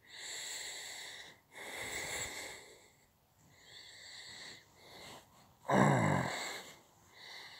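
Breathing close to the microphone: a series of noisy breaths about a second long each, with a short low voiced groan just before six seconds in.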